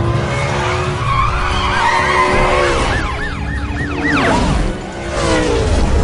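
Car-chase sound: car engines running with a slowly falling note, then tyres squealing in a quick run of rising-and-falling swoops about three seconds in, with a police siren and a low rumble underneath.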